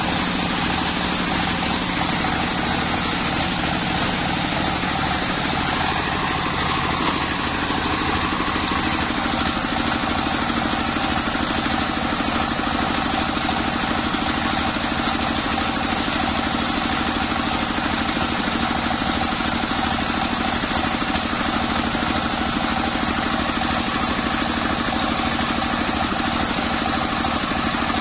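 Stationary single-cylinder diesel engine running steadily, driving a belt-driven table circular saw that is ripping a long waru log lengthwise, the blade hissing through the wood. The engine's pitch shifts about seven seconds in as the saw takes up the load of the cut.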